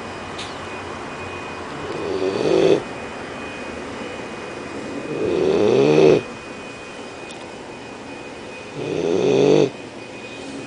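A 12-week-old Leonberger puppy snoring in its sleep: three drawn-out snores about three and a half seconds apart, each growing louder and then stopping suddenly.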